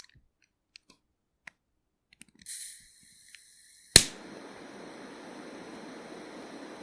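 Cigarette lighter struck and lit: a few light clicks of handling and a short hiss, then one sharp loud strike click about four seconds in, followed by the steady hiss of the burning flame.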